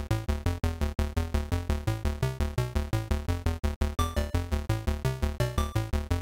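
Electronic outro music: quick, evenly repeating synthesizer notes, about six or seven a second, over a steady bass line.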